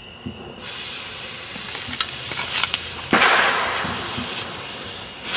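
Ground fountain firework lit: a hiss with crackles starts about half a second in and grows much louder about three seconds in as it sprays sparks.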